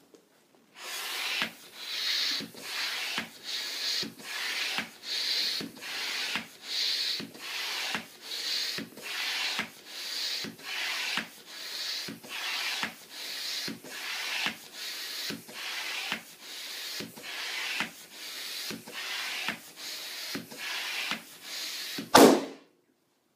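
Balloon pump worked in steady strokes, a rush of air with each one, a little more than one a second, blowing up a balloon until it bursts with one loud pop near the end.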